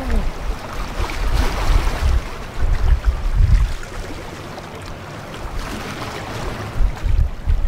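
Wind gusting on the microphone in uneven low buffets over a steady wash of water from the passing carferry SS Badger. The buffeting eases for a couple of seconds past the middle.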